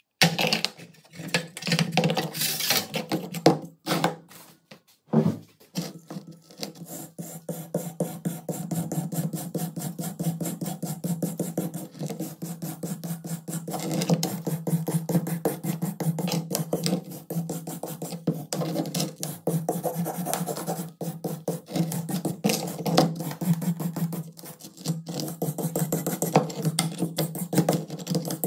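A stiff brush scrubbing rust off a corroded pistol grip frame in rapid back-and-forth strokes, starting a few seconds in after parts are handled and set down with light knocks. A steady low hum runs beneath the scrubbing.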